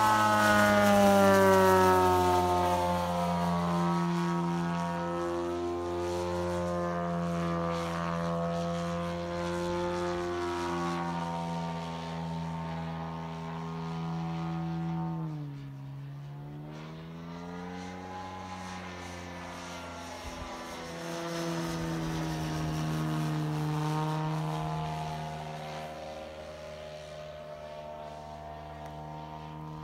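Engine and propeller of a giant-scale radio-controlled Grumman F3F model plane in flight: a steady drone whose pitch falls as it passes close at the start, dips briefly about halfway through, then rises again. It is loudest early and fades as the plane climbs away.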